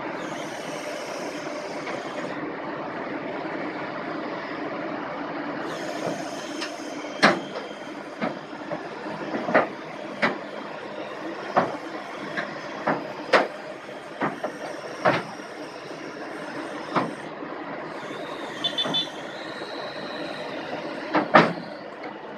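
Kobelco SK210 long-arm excavator running steadily, with about a dozen sharp metal clanks coming every second or two from a few seconds in until near the end.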